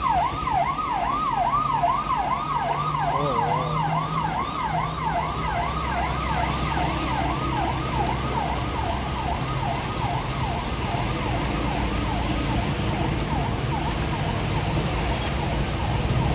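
Siren going in quick up-and-down sweeps, about two or three a second, fading away over the first ten seconds or so. Under it is the steady rush of floodwater running across the road, with passing motorbike and car traffic.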